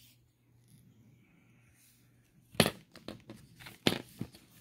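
A quiet stretch, then two sharp clacks and a few lighter knocks, about a second apart, from small hard objects being handled.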